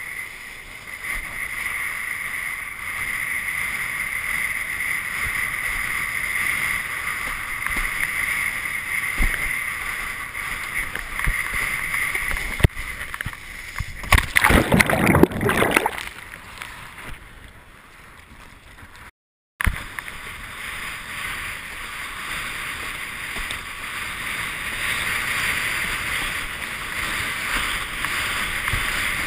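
Rushing wind and water on a GoPro in its waterproof housing, mounted on a windsurf rig planing at speed: a steady loud hiss. About halfway through comes a loud splash as the board and sail go into the water in a wipeout, then a quieter, muffled spell. The sound cuts out for a moment, and the rushing hiss returns.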